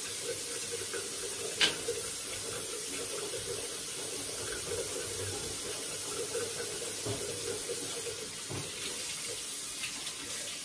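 Bathroom faucet running in a steady stream into the sink, with mouthwash gargled in the mouth until about eight seconds in, then spat into the sink near the end.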